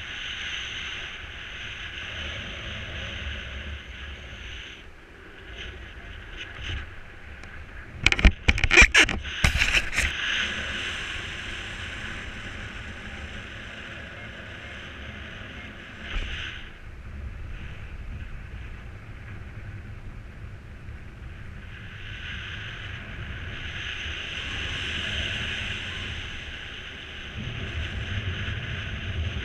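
Rushing wind on the microphone of a paraglider in flight, swelling and easing. It buffets hard for a couple of seconds about eight seconds in.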